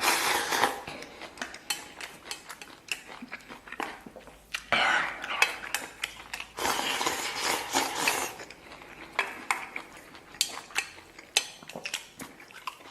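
Eating at the table: chopsticks clicking against a bowl and plate, with stretches of chewing and mouth noises as stir-fried pig intestines and rice are eaten.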